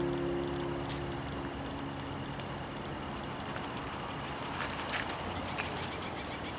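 Insects chirping steadily in a high, even drone over an outdoor stream-side hush. The last notes of background music fade out in the first second or so. A few faint light splashes or taps come about five seconds in, in time with a skipped stone.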